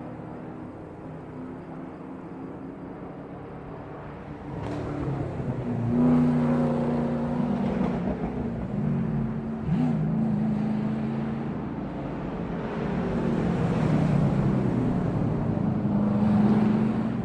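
Racing car engines: a steady engine drone that grows much louder about five seconds in, with the pitch shifting as the engines rev and pass.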